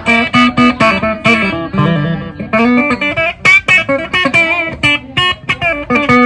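Electric guitar played in a quick run of picked single notes and short phrases, some notes held with vibrato.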